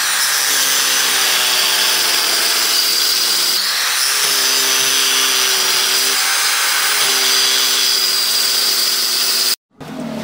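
Handheld circular saw running and cutting through a melamine-faced MDF board, with a steady high whine over the cutting noise. It stops abruptly near the end.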